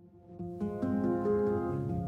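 Instrumental background music starting up from silence. It rises to full level within about half a second, with a steady low line under a run of separate notes.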